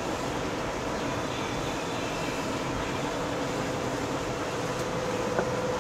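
Steady mechanical background hum with a faint steady tone running through it.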